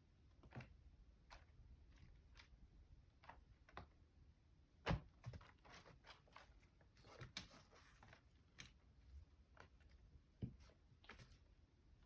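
Faint, scattered rustles and small crunching clicks at an irregular pace, with a sharper tick about five seconds in.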